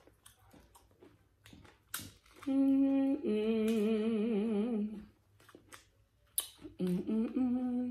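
A woman hums through closed lips while eating: a short steady hum, then a longer one wavering up and down, and another near the end. Sharp crisp crunches of tortilla chips fall between the hums.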